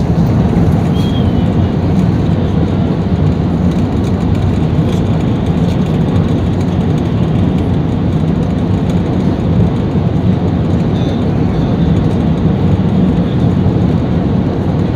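Loud, steady low rumble inside the cabin of an Airbus A380 rolling out on the runway after touchdown: the engines and the wheels on the runway together.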